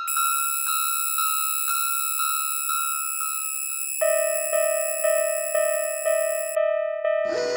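Railroad crossing warning bell ringing about twice a second, the alarm that sounds as the barriers come down. About four seconds in it changes to a lower-pitched crossing bell ringing at the same pace.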